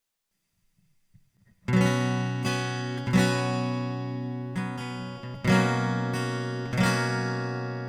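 Acoustic guitar strumming chords, starting about a second and a half in after near silence, each strum ringing on and fading into the next.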